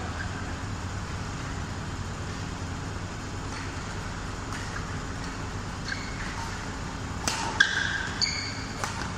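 Badminton rally: rackets striking the shuttlecock with light, sharp cracks over a steady low hum, the hits growing louder about seven seconds in, mixed with a few short squeaks of shoes on the court mat.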